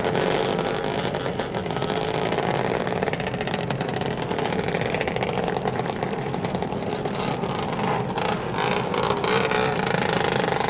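Car sound effect: a car engine running as the car drives off, steady throughout and cutting off abruptly at the end.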